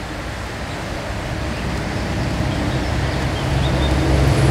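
A motor vehicle's engine running close by: a steady low hum that grows louder over the second half.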